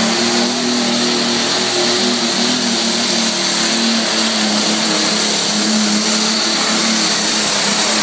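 John Deere Super Farm pulling tractor's turbocharged diesel engine running hard under load as it drags the weight sled, loud and steady with a high whine over the engine note.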